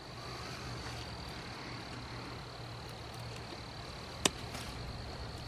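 Quiet garden background: a steady low hum with a faint steady high tone over it, and one sharp click about four seconds in.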